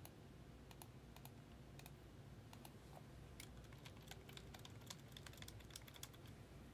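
Faint, irregular clicking of a computer keyboard being typed on.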